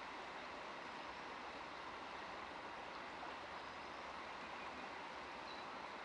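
Faint, steady outdoor ambience: an even rushing noise with no distinct calls, knocks or cracks.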